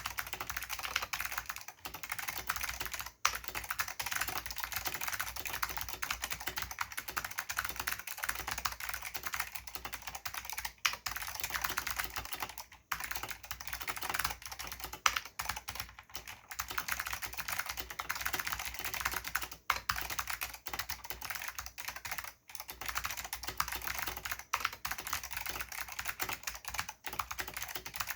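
Fast continuous typing on a mechanical keyboard with lubed Alps SKCM White switches and thick doubleshot keycaps: rapid, dense key clicks with only brief pauses.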